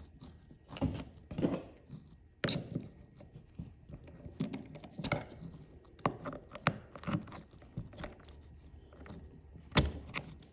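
A keypad casing section being slid down and handled, with irregular small clicks, knocks and scrapes and a sharper knock near the end.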